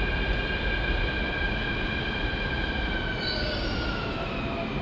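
Mumbai Metro train's electric whine slowly falling in pitch over a steady rumble as it brakes into the platform. About three seconds in, a high squeal joins as it comes almost to a stop.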